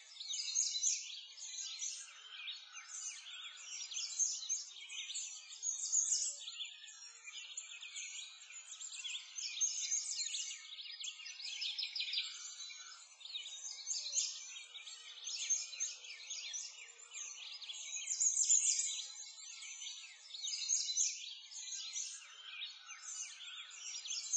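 Continuous chorus of many small songbirds chirping and trilling, high-pitched and rising and falling in loudness, with no low sounds beneath.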